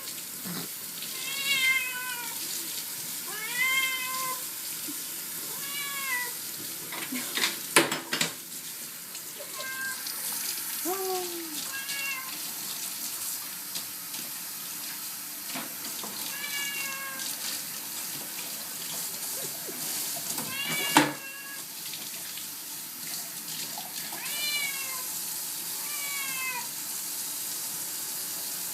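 A cat meowing over and over while being bathed, each meow a rising-then-falling cry, about every two to three seconds, over the steady hiss of running tap water. A few sharp knocks come about eight seconds in and again about two-thirds of the way through.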